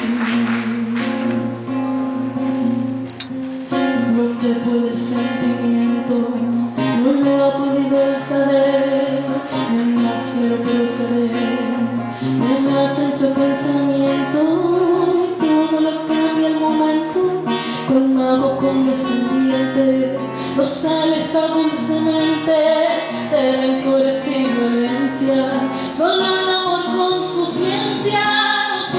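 A woman singing a song, with a plucked guitar accompanying her.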